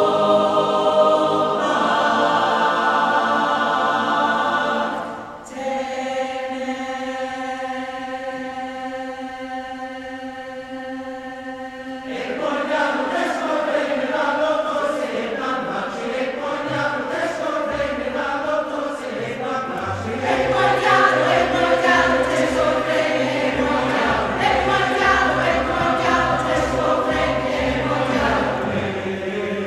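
Large mixed choir singing in Bulgarian with orchestra. Long held chords give way about twelve seconds in to rhythmic singing, and a low pulsing beat joins underneath from about eighteen seconds.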